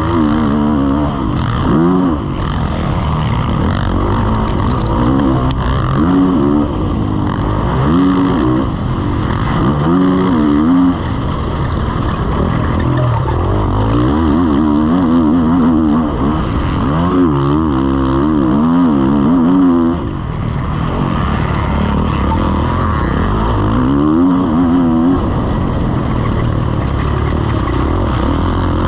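Kawasaki KX450 four-stroke single-cylinder motocross engine under hard riding, revving up and dropping back every second or two as the throttle is opened and shut through the gears, with a short lift off the throttle about two-thirds of the way through.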